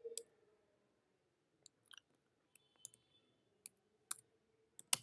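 Faint computer keyboard keystrokes: a handful of separate key clicks at uneven gaps, mostly in the second half.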